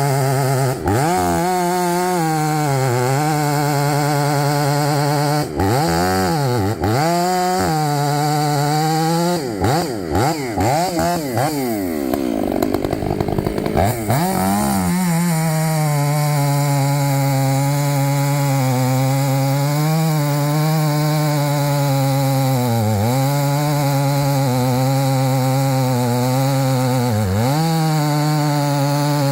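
Chainsaw engine running at high revs, its pitch dipping and recovering several times as the load comes on and off, with a rough, uneven stretch about halfway through.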